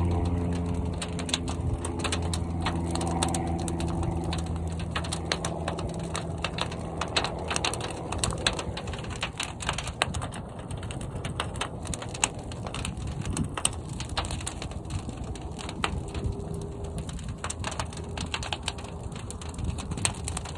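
Fire burning inside a large kiln, with a steady rushing sound and frequent irregular crackles and pops. A low steady hum fades out in the first few seconds.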